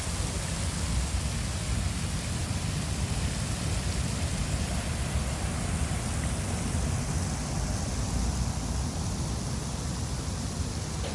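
Steady rushing and splashing of fountain water, an even noise with a low rumble underneath.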